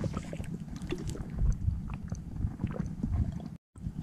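Low rumble of wind on the microphone, with scattered small clicks and knocks from handling. The sound drops out completely for a moment near the end.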